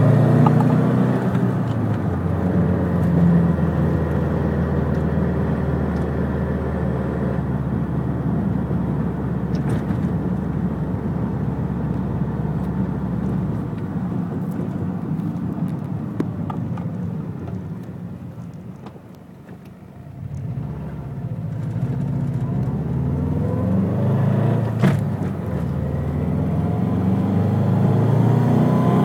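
Subaru WRX STi's turbocharged flat-four engine running under way: its note falls away, is quietest about two-thirds of the way through, then climbs again as the revs rise near the end. The owner reports a knocking from the front of the car that comes in past 3,000 rpm.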